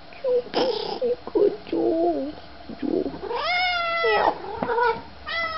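Domestic cat meowing over and over: a run of short, lower, wavering mews, then a long, loud meow that rises in pitch about three and a half seconds in, and another beginning near the end. Insistent calling that the owner warns will make the cat hoarse.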